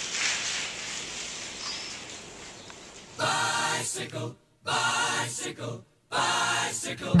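Steady noise of the camera moving with the bike for about three seconds, then choral singing starts: three held sung chords, each about a second long, with short silences between them.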